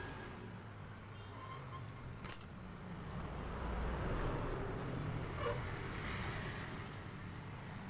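Pliers stripping the insulation off a small electrical wire: one sharp click about two seconds in, then rustling and small ticks of handling over a steady low background hum.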